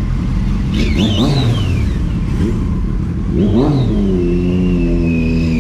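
Kawasaki Z900's inline-four engine through a full exhaust, revving up and dropping back twice in quick blips, then running at a steady pitch near the end.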